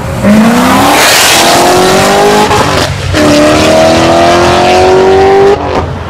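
Chevrolet C7 Corvette's V8 accelerating hard through the gears: the engine note climbs, dips briefly at an upshift about three seconds in, climbs again through the next gear, then falls away suddenly shortly before the end.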